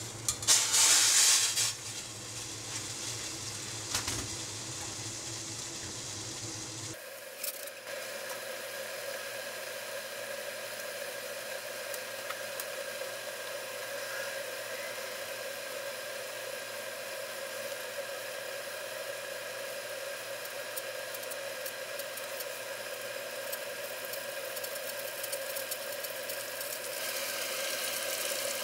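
Konnyaku cubes tipped from a mesh strainer into a saucepan of water, a loud splash and clatter in the first second or two. Then the steady hiss of the water heating on a gas burner, growing a little louder near the end as it comes to a rolling boil.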